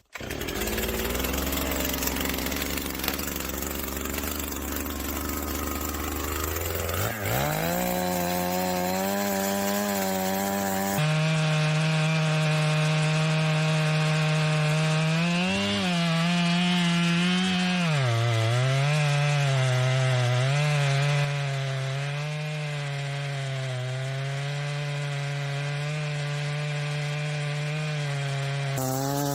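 Two-stroke chainsaw revving up to full throttle about a quarter of the way in, then running at high revs while cutting through wood. Its pitch sags briefly twice as the chain bogs down in the cut.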